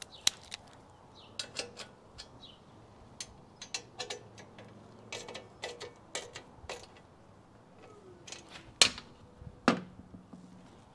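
Small metal tools and motorcycle parts handled on a bench: a scattered string of light clicks and taps, then two louder metal clanks near the end, the second ringing briefly.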